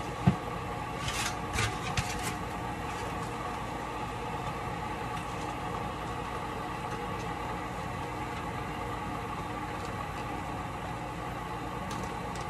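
Steady mechanical hum of a running motor or fan, holding even throughout. A sharp knock comes just after the start, then a few short clatters and scrapes of foam takeout containers being handled about one to two seconds in.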